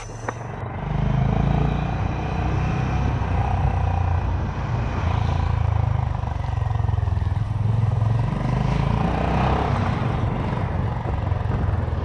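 Honda CB350 H'ness single-cylinder engine running through its stock exhaust, a steady low thump with small rises and falls in level.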